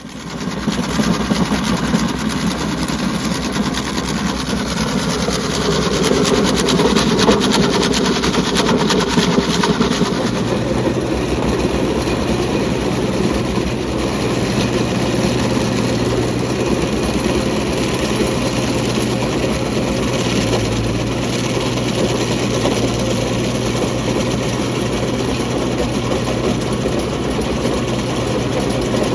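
Kubota B2650's three-cylinder diesel running steadily under load, driving a Woods three-point PTO stump grinder whose dull cutter wheel is chewing into a pine stump. The tone changes slightly about ten seconds in.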